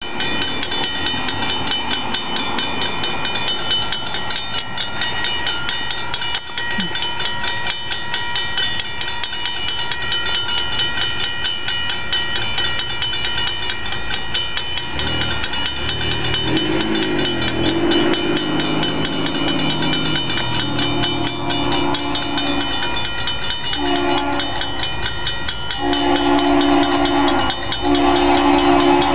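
Railroad grade-crossing bell ringing rapidly and steadily. About halfway through, an approaching Norfolk Southern diesel locomotive starts sounding its horn in long and short blasts, getting louder toward the end.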